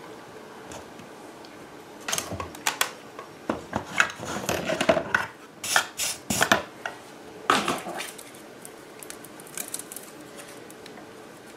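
Small metal tools and wires being handled on a workbench: a run of clinks, clicks and short rattles over several seconds, dying down near the end, as a soldering iron is taken up to tin wires.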